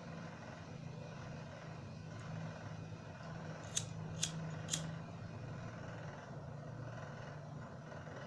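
Disposable lighter being struck three times about half a second apart near the middle, relighting its flame. A steady low hum runs underneath.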